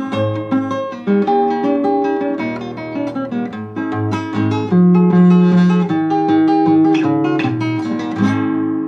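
Acoustic guitar playing a gato, an Argentine folk dance, mixing picked melody notes with strummed chords. A last chord is struck near the end and left ringing.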